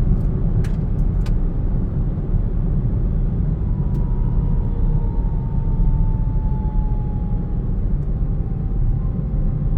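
Hyundai Kona on the move: a steady low rumble, with a faint whine that slides slowly down in pitch from about four to eight seconds in and climbs again near the end. A few light clicks at the very start.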